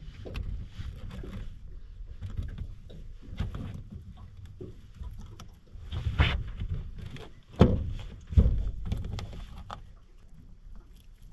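Handling noises as a live mud crab is tied up with twine on a boat's carpeted aluminium deck: scuffing and small clicks over a low rumble, with two sharp knocks less than a second apart about two thirds of the way through.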